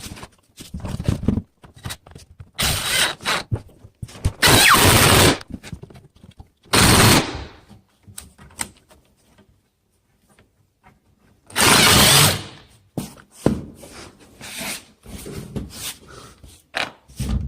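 Power drill driving screws to fasten kitchen cabinets together, in several runs of about a second each, with knocks and handling clatter of the cabinets between them.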